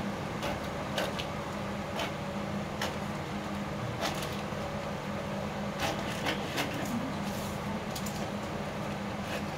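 Scissors snipping through brown pattern paper, a sleeve pattern being cut out along its curve: short crisp cuts at an uneven pace, closer together in the second half.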